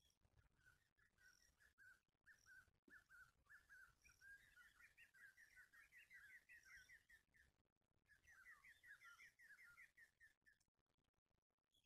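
Faint, quick chirping of a small bird: a long run of short high notes that speeds up partway through, breaks off briefly, starts again and stops shortly before the end.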